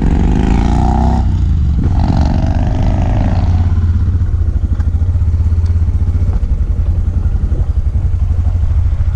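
Suzuki DR650's single-cylinder engine running steadily, with a strong low throb.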